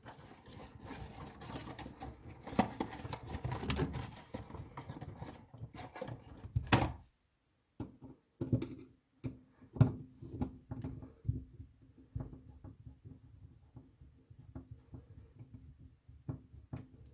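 Hands fitting a GFCI outlet into its wall box: about seven seconds of rustling and scraping, a brief dropout, then scattered clicks and knocks.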